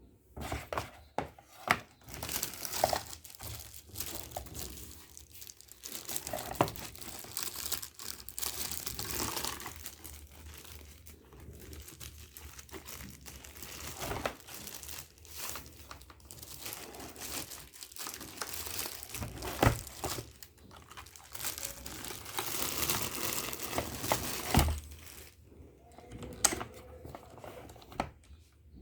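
Packaging being unwrapped: continuous crinkling and rustling with tearing, broken by sharp knocks, the loudest about twenty seconds in and about twenty-four seconds in.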